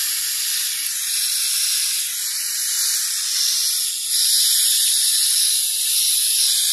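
Garden hose spray nozzle on its shower setting, water hissing steadily as it sprays onto potted succulents. The hiss gets a little louder about four seconds in.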